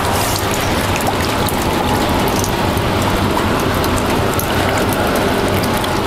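Steady rain falling on the pond water and concrete, a dense, even hiss made up of many small drop ticks.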